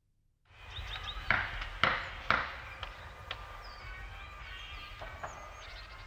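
Outdoor ambience fades in after a moment of silence: a low steady rumble, short high chirps, and several sharp knocks, the loudest three coming about half a second apart early in the sound.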